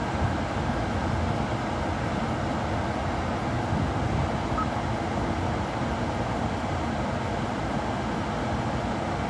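Steady low noise inside a car cabin, with one brief faint tone about halfway through.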